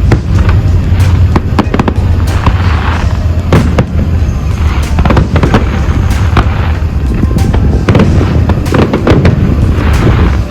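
Fireworks display: a dense, continuous run of loud bangs and crackling bursts, many per second, with music playing alongside.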